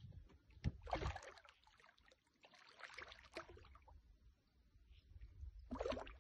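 Hooked arowana thrashing at the water's surface, splashing in three bursts: about a second in, around three seconds, and near the end.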